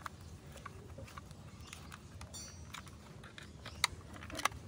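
Small screwdriver tightening screws into the base of a toy metal city bus: faint scattered clicks and scrapes, with two sharper clicks near the end.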